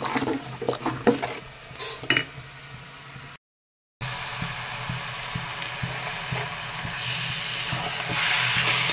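A metal ladle clinks and scrapes while khichuri is stirred in a metal pot. After a brief cut to silence, cabbage and potato curry sizzles in a wok as it is stirred with a metal spatula, and the hiss grows louder near the end.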